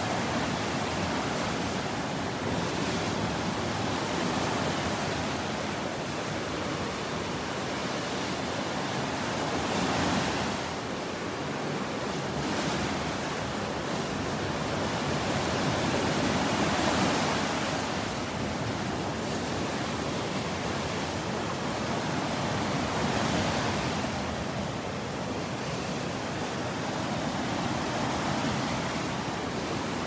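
Gulf of Mexico surf breaking and washing up the beach: a steady rush of water that swells louder every several seconds as waves come in.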